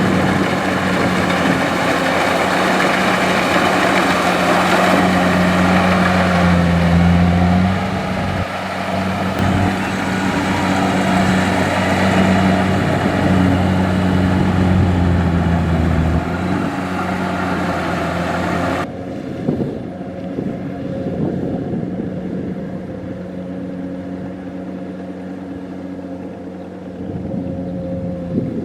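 Kubota DC-70 rice combine harvester's diesel engine and machinery running with a steady drone. About two-thirds through, the sound suddenly turns duller and quieter.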